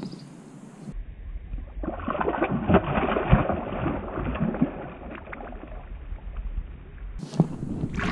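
Shallow lake water splashing and sloshing as a released bass kicks away from the hand, busiest about two seconds in and easing off over the next few seconds.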